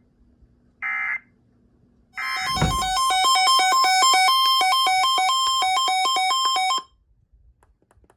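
Emergency Alert System data tones: a short burst of warbling digital tone about a second in and another about two seconds in, marking the end of one alert and the start of the next. A loud electronic alert tone follows, beeping rapidly between two pitches, with a thump at its onset, for about four seconds before cutting off.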